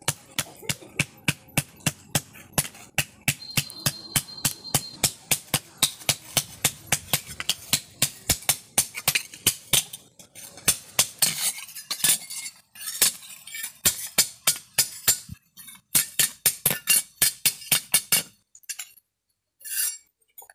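Hand hammer striking a steel spade blade on an anvil, about three blows a second, each with a metallic ring. In the second half the blows grow uneven with short breaks, and they stop a couple of seconds before the end.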